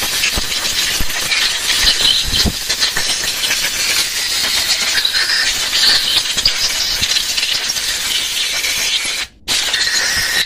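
Pressurised spray hissing loudly and steadily into a Honda Vario 125 FI throttle body to flush out crusted carbon deposits. It stops for a moment near the end, then gives one more short blast.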